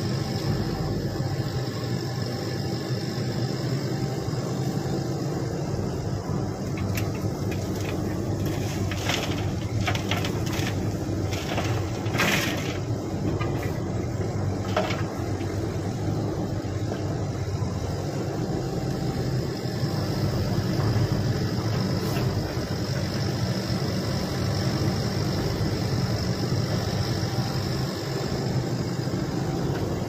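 Shantui SE135 crawler excavator's diesel engine running steadily under load as it works its hydraulic arm. A cluster of knocks and rattles comes about ten to fifteen seconds in, as a bucketload of soil and rock drops into the dump truck's steel bed.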